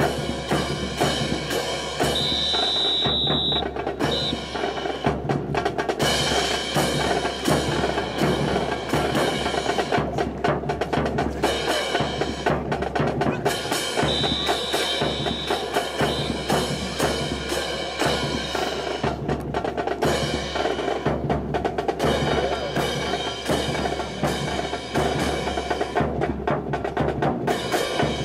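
Marching music with a steady snare and bass drum beat. A high held note sounds briefly twice.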